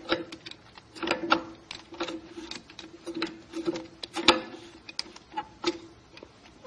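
Clutch drum assembly of a Nissan RE4R01B automatic transmission being rotated back and forth by hand inside the case, its clutch plates clicking and ticking irregularly as the teeth seek alignment, loudest about four seconds in. The drum is not dropping into place, most likely held up by a seal.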